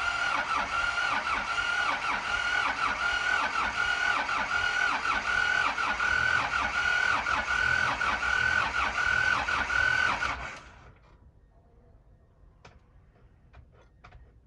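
Electric starter of a T-25 tractor's two-cylinder air-cooled diesel cranking the cold engine slowly for about ten seconds, its whine rising and falling in a steady rhythm with each compression stroke. It stops abruptly without the engine catching, and a few faint clicks follow.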